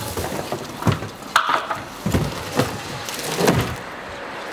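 A large cardboard shipping crate being lifted and handled: crackling rustles and scrapes of cardboard, with several sharp knocks through the stretch.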